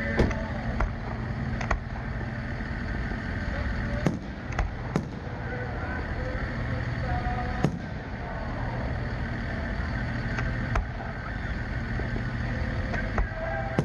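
Aerial fireworks going off at a distance: about nine sharp pops at uneven gaps over a steady background din.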